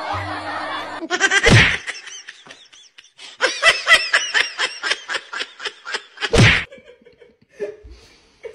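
A person laughing hard in a rapid run of ha-ha bursts, about five a second, for roughly three seconds, with a loud thump just before it and another as it ends.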